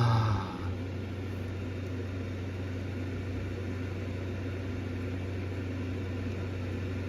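A steady low hum with an even hiss underneath; the tail of a voice fades out in the first half second.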